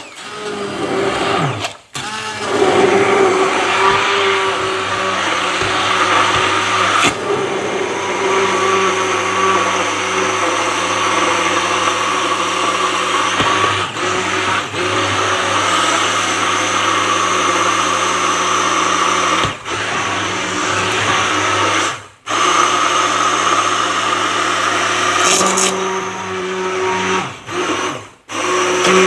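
Hand-held immersion blender running in a stainless steel pot, puréeing cooked pumpkin and potato soup with a steady motor hum and churning. The motor cuts out for a moment a few times, about 2, 22 and 28 seconds in.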